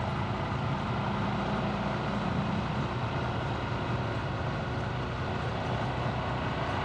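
Honda Super Cub's single-cylinder four-stroke engine running at a steady cruise, with road and wind noise from riding.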